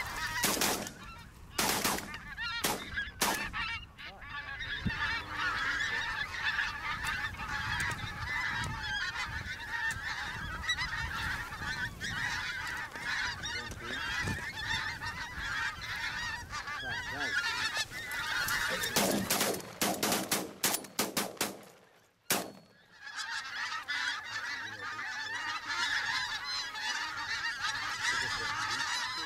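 A large flock of wild geese honking continuously overhead, many birds calling at once. Sharp bangs cut through the calling: a few in the first three seconds and a rapid cluster about two-thirds through, shotgun shots at the passing geese.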